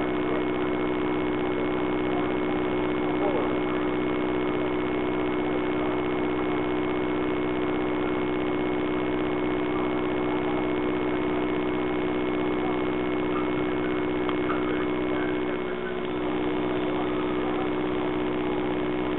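Steady hum of an idling engine, dipping briefly near the end.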